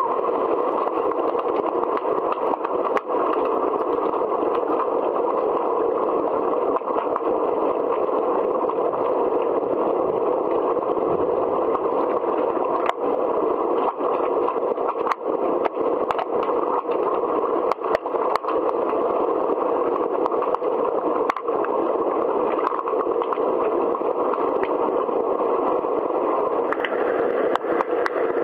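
Steady, muffled hiss with scattered sharp clicks and knocks throughout, the sound of an underwater hockey game heard through a camera below the surface.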